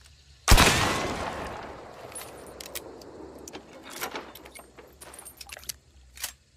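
A single shot from a Maynard rifle about half a second in, its report ringing away over a second or so. It is followed by a series of sharp metallic clicks and rattles from the rifle's action being worked.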